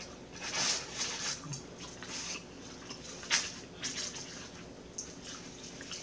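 Crinkling and rustling of paper food packaging being handled, in irregular bursts, with the sharpest crackle about three seconds in.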